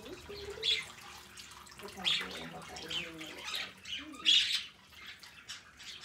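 A flock of budgerigars chirping and warbling. Sharp high chirps come at irregular moments, the loudest about four seconds in, over a steady, chattering warble.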